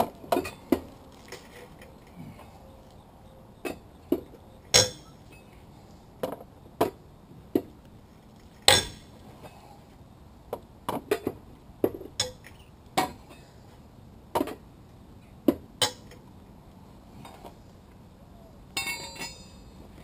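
Sharp metallic clinks and clicks of a lug wrench fitted and worked on the lug nuts of a minivan's rear wheel, coming irregularly, the loudest about five and nine seconds in, with a short rattle near the end.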